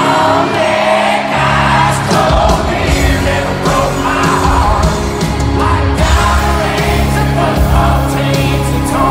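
Live country band playing, with an amplified male lead vocal, heard from within the concert crowd. The bass and drums come in about a second and a half in.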